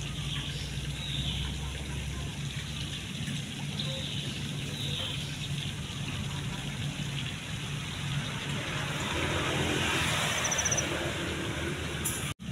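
Outdoor background with a steady low hum, faint high chirps now and then, and a brief swell of hiss near the end.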